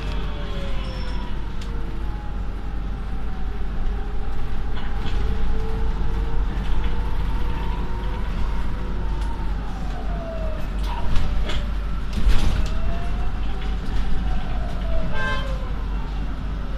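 Bus running noise heard from inside the cabin: a steady low rumble with a drivetrain whine that rises and falls in pitch as the speed changes. A couple of knocks come about two-thirds in, and a brief toot near the end.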